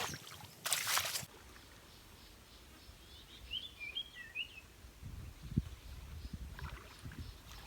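Outdoor ambience by a river. A short rush of noise comes about a second in, a bird chirps a few times near the middle, and low rumbling fills the second half.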